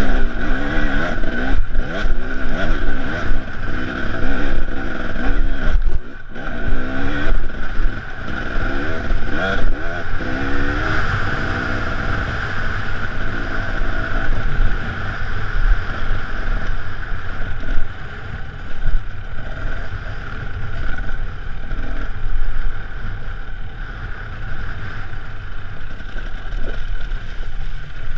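Off-road enduro motorcycle engine under way, heard from the bike itself: revving up and down as the throttle is worked, with the throttle shut briefly twice in the first few seconds, then running more evenly.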